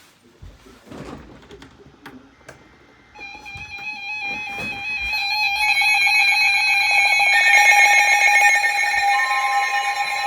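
Weather radio alert tones for a tornado warning: several steady electronic alarm tones, some beeping rapidly, start about three seconds in and build up, with one more tone joining near the end.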